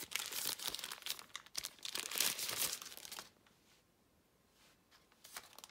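Thin plastic wrapper crinkling and rustling in the hands for about three seconds as it is pulled off a clear silicone phone case.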